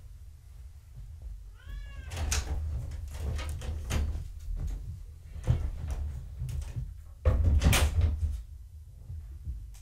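A young kitten gives one short, high mew about a second and a half in, followed by a run of knocks, scuffs and thumps, the loudest cluster about seven seconds in.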